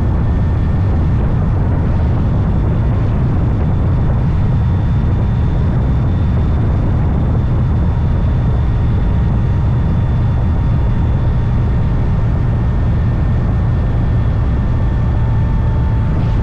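Motorcycle riding at a steady speed: a loud, unbroken low rumble of wind and engine, with a faint steady whine above it.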